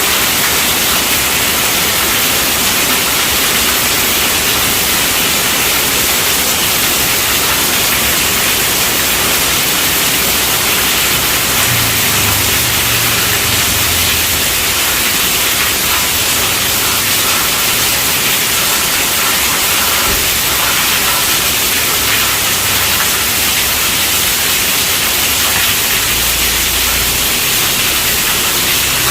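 Steady rainfall, a dense, even hiss with no breaks.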